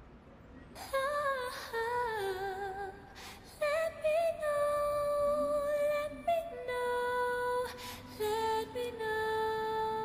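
Wordless humming of a slow melody, long held notes with a slight waver, moving from note to note every second or two: the vocal intro of a background song.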